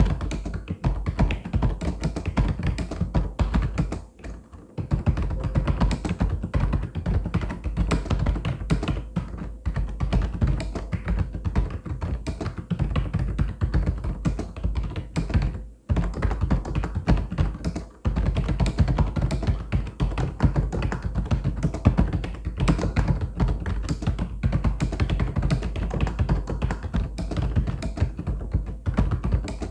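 Rapid, continuous typing on a mechanical keyboard: a dense stream of clacking keystrokes, with short pauses about four seconds in and again around sixteen and eighteen seconds.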